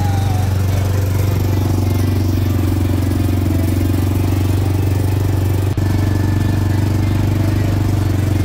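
Side-by-side UTV running steadily under way, a loud constant engine and drivetrain drone, with a few faint, short squeals over it.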